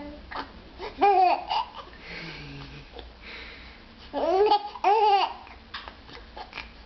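Baby babbling and squealing in high, arching vocal calls: one about a second in, then a run of three near the middle.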